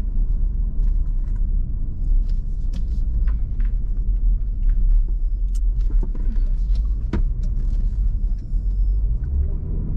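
Steady low rumble of a car driving, heard from inside the cabin, with a few faint light clicks over it.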